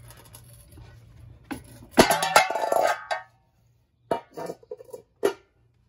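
A metal hubcap pried off a steel wheel with a hubcap removal tool: a sharp metallic pop about two seconds in, with the hubcap ringing for about a second. A few short metal clinks follow as it is handled.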